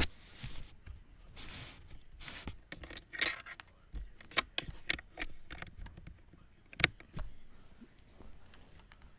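Handling noise: irregular knocks, taps and rustles as the recording device and bedding are moved about, with the sharpest knock about seven seconds in.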